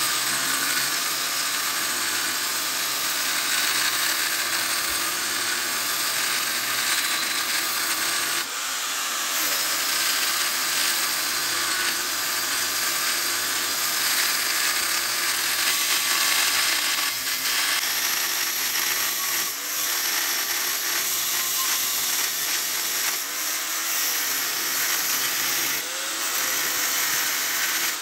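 Small angle grinder with an abrasive disc cutting into a rusty steel I-beam: a steady, high-pitched grinding hiss of disc on steel, dipping briefly a few times as the load eases.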